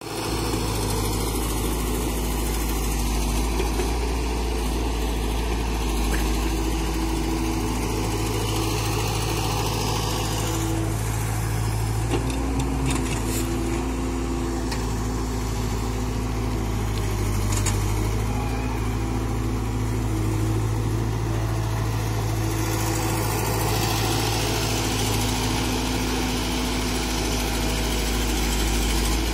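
Diesel engine of a Caterpillar tracked excavator running steadily as it digs and loads soil, its note shifting slightly a few times.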